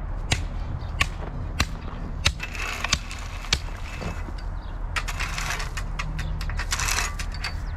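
Loader engine running steadily while its bucket spreads and levels stone, the stone crunching and scraping in several stretches. A series of sharp clicks and knocks runs through it, about every half second at first.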